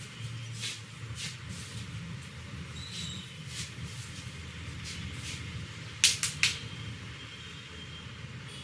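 Head massage: repeated short taps and slaps of the masseur's hands on the head, with three sharp snaps in quick succession about six seconds in. A steady hum of street traffic runs underneath.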